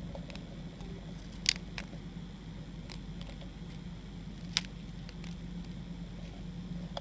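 Devil's flower mantis making a few short, sharp clicks, two louder ones about three seconds apart, over a steady low hum.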